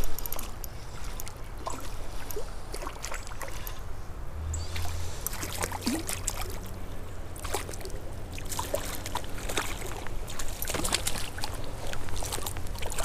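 Water splashing and sloshing as a hooked rainbow trout thrashes at the surface while being reeled in on a spinning rod, with many short scattered splashes and clicks over a steady low wind rumble on the microphone.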